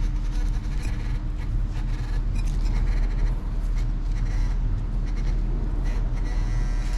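Recovering a metal-detector target from soil: scraping from digging, with brief electronic beeping tones from the detector or pinpointer.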